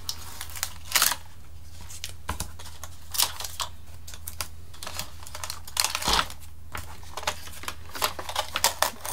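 Blue tape being picked and peeled off a foam model-plane wing while the wing is handled on a bench: irregular light clicks, taps and short scratchy peels, the loudest about a second in and again near the middle, over a steady low hum.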